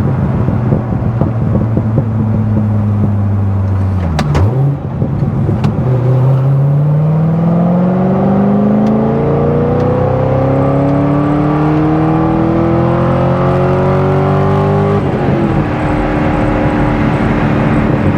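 C6 Corvette Z06's 7.0-litre LS7 V8 engine under way. It drops to low revs about four seconds in, then pulls steadily up in pitch for about ten seconds. Near the end the revs fall with an upshift and it runs steady.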